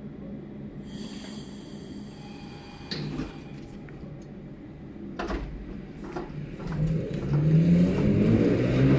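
EP2D electric multiple unit pulling out of the station: a whine from its traction drive starts about seven seconds in and rises in pitch and loudness as the train accelerates. Before it come a brief high tone and a few clicks and knocks.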